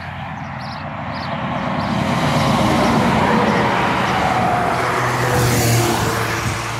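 A box delivery van passing by on the road, its tyre and engine noise building up over the first couple of seconds, staying strong, then easing off near the end.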